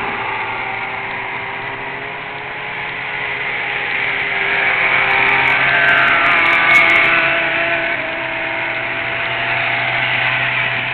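Winged sprint car engine running hard on a dirt track, its pitch rising and falling with the throttle. It grows louder toward the middle and then eases off.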